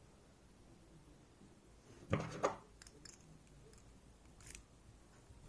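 Two quick metallic clicks about two seconds in and a fainter one later, from handling a picked EVVA 3KS lock and its tools while trying to slide the core out.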